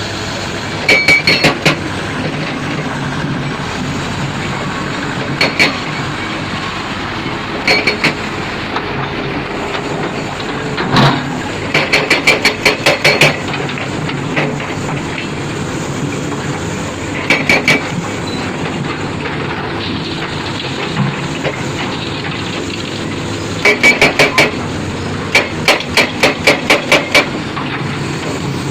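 Heavy construction machine running with a steady engine drone, broken every few seconds by bursts of loud, sharp metallic clanks, several strikes in a row at about four or five a second, each ringing briefly.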